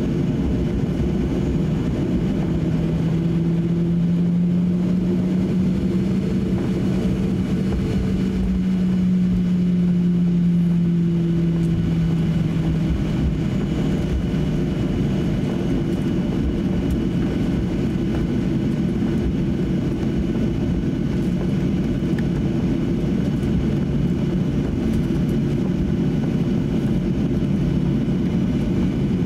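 Cabin noise inside a Boeing 737-800 taxiing after landing: a steady low rumble from its CFM56-7B engines at idle and the rolling airframe. A humming tone grows louder from about two seconds in and fades away around thirteen seconds.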